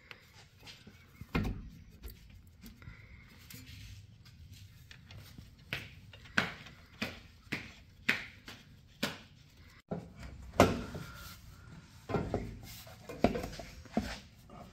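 Irregular knocks and clunks of hand tools and parts being handled during work on a car. Some come singly and a quicker run comes near the middle, the loudest about ten seconds in.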